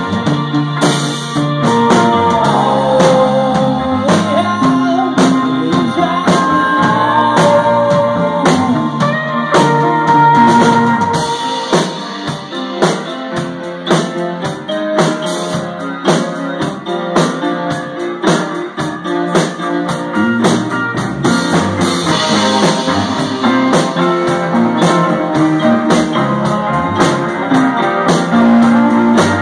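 Live rock band playing a song: electric guitar over a drum kit. Midway the bass end drops away for about ten seconds before the full band comes back in.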